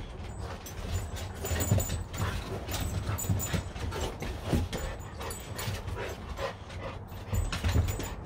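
Dogs lunging at and gripping a bite sleeve: dog noises mixed with irregular scuffs and knocks.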